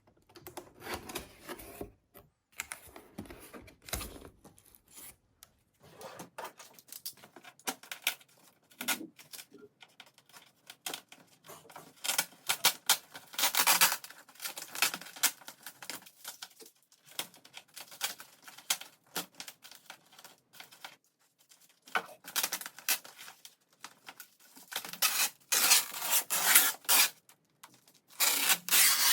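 Packaging being opened and handled by hand: irregular bursts of tearing, rubbing and scraping with scattered clicks.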